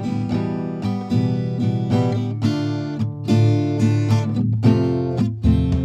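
Background music: an acoustic guitar playing plucked notes and strummed chords at an easy pace.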